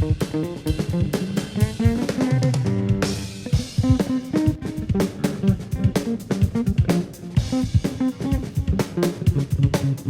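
Instrumental funk-rock: electric bass and guitar over a full drum kit with kick and snare playing a steady beat.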